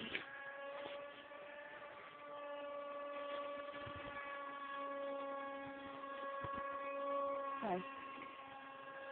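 Electric motor and propeller of a Beta 1400 radio-controlled model plane in flight: a faint, steady whine that swells and eases slightly as the plane moves about the sky.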